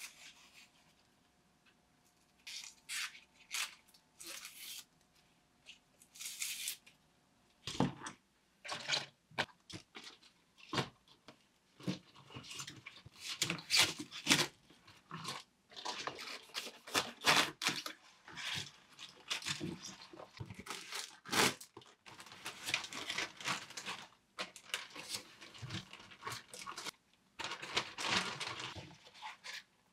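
Large green onions being prepared by hand. First comes the soft tearing and rustling of their papery outer skin being peeled off. Then, from about eight seconds in, a wide-bladed kitchen knife cuts through the crisp stalks onto a cutting board in a long run of short crunchy chops.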